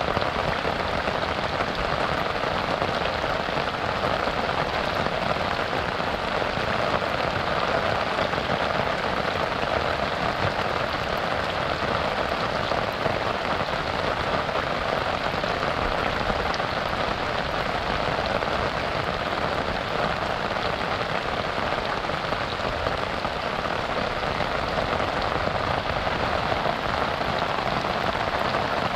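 Steady rain falling on a river: an even, unbroken hiss with no thunder or other sounds standing out.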